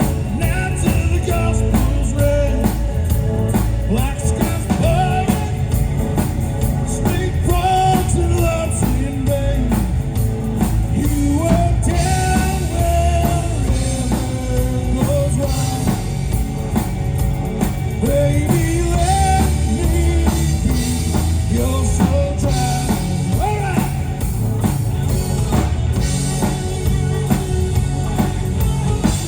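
Rock band playing a song: a singer's melody over drums, bass and guitar.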